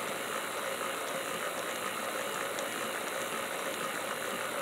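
Mantua 0-6-0T 'Little Six' HO model locomotive running forward on a roller test stand: a steady whir from its five-pole open-frame motor and gearing, with the drivers turning on the rollers.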